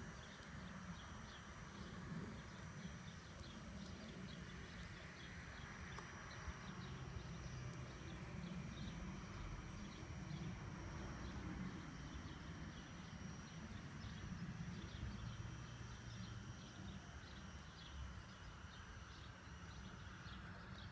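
G-scale USA Trains NYC PA-1/PB-1 model diesel locomotives running on garden track: a steady low motor and gear hum, with the wheels clicking regularly over the rail joints. A faint high whine cuts off near the end.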